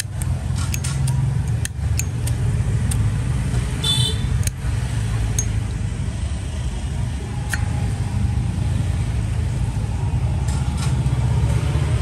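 Sharp metal clicks of a Zippo lighter being handled, its lid flicked and flint wheel struck, with a short bright metallic ring about four seconds in, over a steady low rumble.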